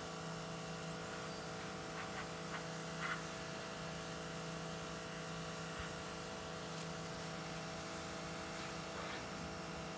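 A steady low hum made of several even tones, like a nearby machine running, with a few faint short sounds about two and three seconds in.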